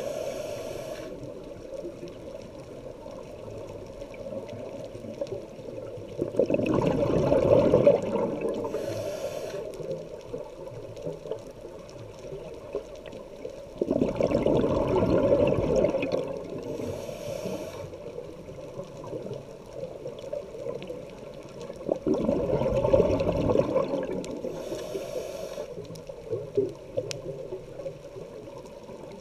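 Scuba diver breathing through a regulator underwater. Three bursts of exhaled bubbles come about eight seconds apart, each followed about a second later by a short hiss through the regulator.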